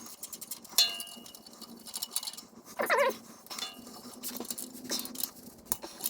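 Metal clinks and knocks of tools and bolts being handled, one sharp clink about a second in that rings briefly, with a faint steady hum underneath.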